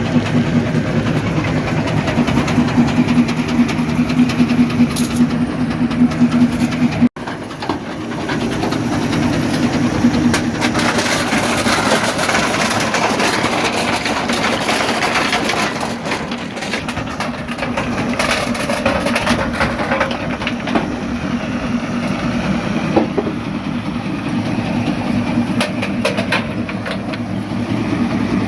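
Primary jaw crusher running and crushing rock: a steady low machine drone with rock grinding and clattering through it. About seven seconds in the sound drops out for an instant, then comes back as a rougher, noisier grinding of rock with scattered sharp knocks.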